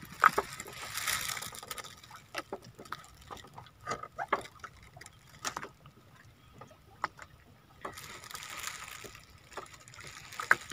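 Water sloshing and dribbling, with scattered light knocks and clicks from gear being handled on a small wooden boat's deck.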